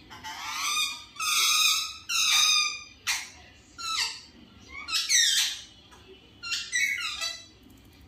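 Indian ringneck parakeets calling: a run of about seven loud, harsh calls, each under a second long, several dropping in pitch.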